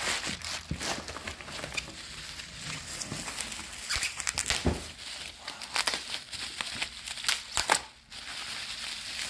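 Packing paper and bubble wrap crumpling and crinkling in the hands as a wrapped item is unwrapped, with many irregular crackles.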